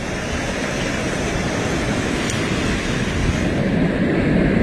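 Sea surf breaking and washing against a rocky shore, a steady rushing mixed with wind on the microphone.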